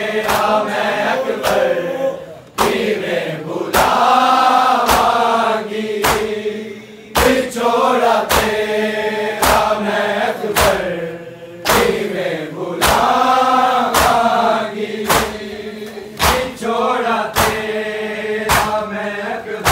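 Men's voices chanting a noha (Shia lament) together in phrases, over sharp slaps of hands on bare chests (matam) struck in unison a little under two a second, keeping time through the pauses in the chant.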